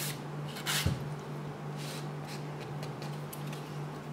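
A few short, scattered strokes of a nail file rubbing on acrylgel-coated fingernails, with a small knock about a second in, over a faint steady hum.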